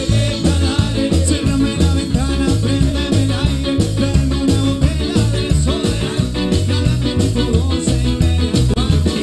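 Live cuarteto band playing: a steady pulsing bass beat under electric guitars, keyboard and horns, with a male singer's vocals.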